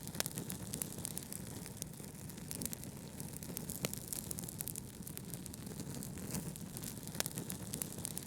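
Wood fire crackling with frequent small ticks and a few sharper pops, over a steady low rumble of brown noise.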